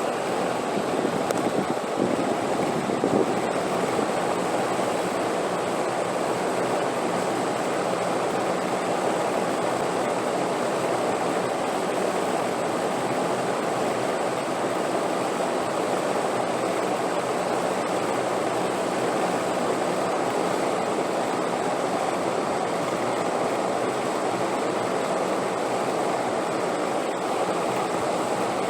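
Steady rushing wind noise, even and unbroken, with no distinct gusts.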